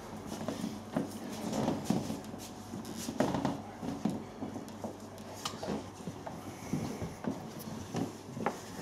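Wooden chess pieces knocked down and moved on a board in quick, irregular clacks, several a second at times, over a faint steady hum.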